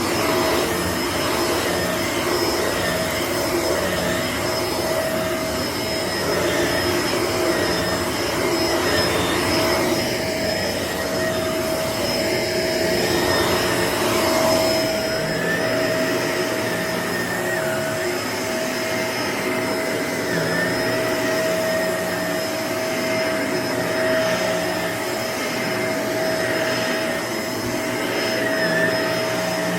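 Shark upright vacuum cleaner running steadily with a motor whine, its pitch dipping briefly now and then as it pulls in debris. About halfway through, the low rumble underneath drops away.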